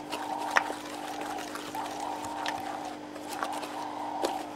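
Damp potting mix being stirred and scraped in a plastic tub by hand and with a small plastic stick, a crumbly rustle with scattered sharp clicks of the stick against the tub. A steady low hum runs underneath.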